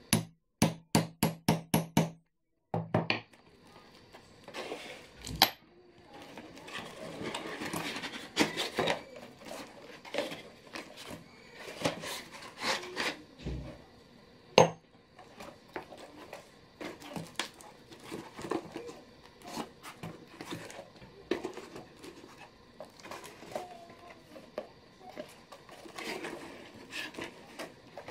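A hammer striking a steel setting tool on a rivet through leather: a quick run of about seven sharp blows, then two more. After that, knocks and rustling as the tools are set down on the board and the stiff leather bag is handled.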